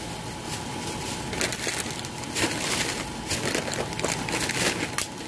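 Thin plastic shopping bag rustling and crinkling close to the microphone, in irregular bursts.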